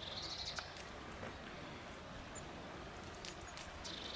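Quiet outdoor ambience with two short, high trills of rapid pulses, one at the start and one near the end, and a few faint ticks.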